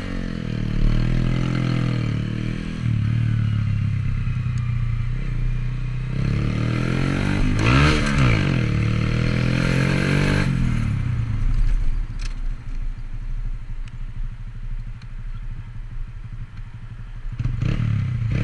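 Motorcycle engine running as the bike pulls away and rides. The engine note rises and falls sharply around eight seconds in, then settles to a lower, quieter steady run at low revs, and picks up again near the end.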